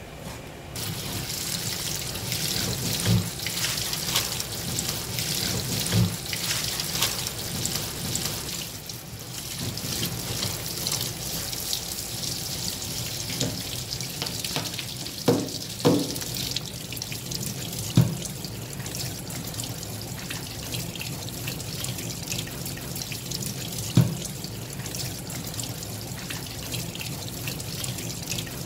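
Tap water running into a stainless steel sink, splashing over a plastic basket of cut sea cucumber pieces that are being rinsed and stirred by hand. The water starts about a second in, and there are a few sharp knocks now and then, loudest in the middle.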